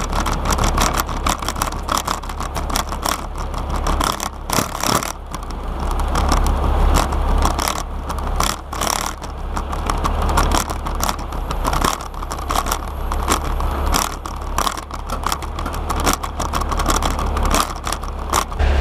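Heavy tow truck (wrecker) engine running steadily while its hydraulic controls are worked at the rear, with many sharp clicks and knocks throughout.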